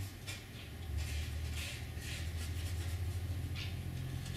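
A fine paintbrush making several short, soft scratchy strokes on canvas, over a steady low hum.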